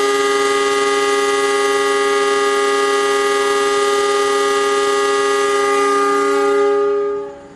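Train horn sounding one long, steady, unwavering blast that fades out near the end.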